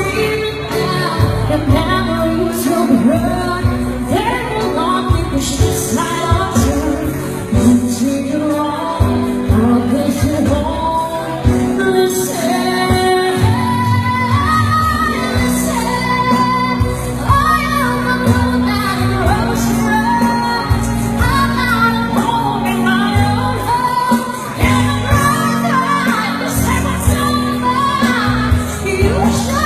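A singer performing over instrumental accompaniment with a steady beat and sustained bass, the voice gliding between long held notes.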